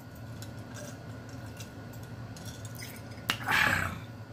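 A man drinking from a glass, with faint gulping clicks. About three seconds in comes a sharp mouth click and then a short, loud, breathy gasp as he reacts to the heat of a hot-pepper dish.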